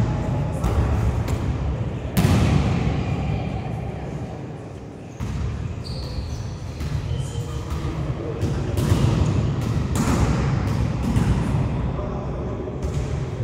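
A volleyball being struck and bouncing on a sports-hall floor: several sharp thuds, each with a long echo in the hall.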